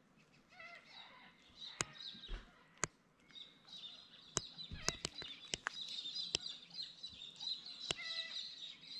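Faint birdsong: many short chirps and whistles from several birds. A few sharp clicks are scattered through it.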